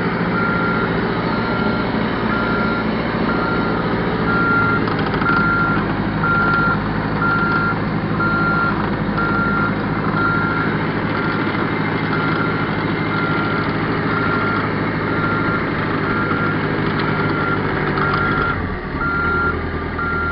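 Backhoe reversing: its backup alarm beeps steadily, about once a second, over the running engine. Near the end the engine note drops while the beeping continues.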